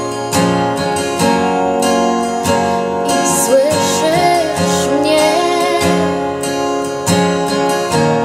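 Instrumental break of a worship song: strummed acoustic guitar chords, with a wavering lead melody line rising above them from about the middle.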